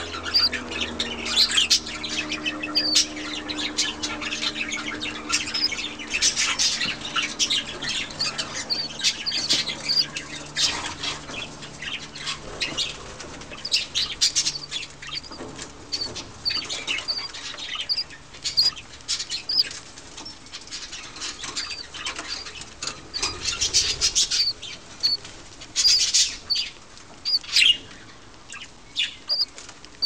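Budgerigar chick begging while a parent budgie feeds it: a fast run of raspy chirps with short high peeps repeating throughout.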